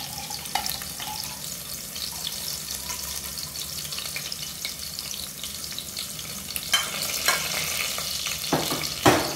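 Whole spices and green chillies sizzling and crackling steadily in hot ghee in a stainless-steel pressure cooker. A few sharper clicks come late on, then a single knock just before the end.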